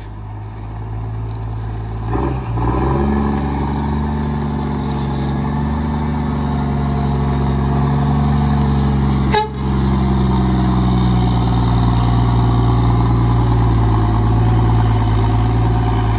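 Turbocharged diesel truck engine running with a steady deep drone that swells over the first couple of seconds and steps up in pitch about two seconds in. A single sharp click comes about nine seconds in.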